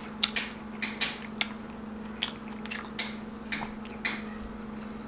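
Close-miked wet chewing and lip smacking of beef kaldereta and rice eaten by hand: irregular short, sharp mouth clicks and smacks, about two a second, over a steady low hum.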